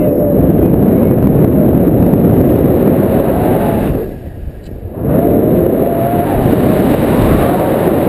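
Airflow buffeting an action camera's microphone during a tandem paraglider flight, a loud steady rumble that drops away for about a second around the middle and then comes back.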